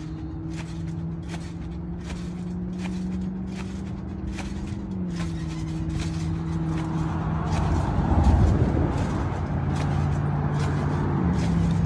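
Trampoline mat and springs clicking with each bounce, about twice a second, over a steady motor hum that drops in pitch twice. A louder low rumble comes about eight seconds in.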